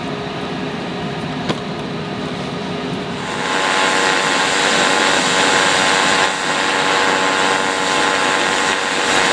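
TIG welding arc on the steel hull plating: a loud, steady hiss that strikes up about three seconds in, dips briefly around six seconds, and carries on to the end. Before the arc starts there is a steady machine hum, with a single click about a second and a half in.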